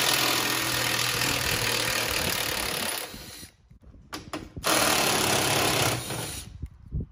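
Makita cordless driver running bolts out of a riding mower's rear suspension piece, in two runs: one of about three seconds, then a pause, then a shorter run of about two seconds.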